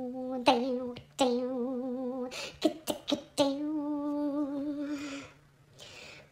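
Sweep's squeaky, kazoo-like puppet voice holding a slow melody in three long, wavering notes, with short clicks between them. It fades out about five seconds in.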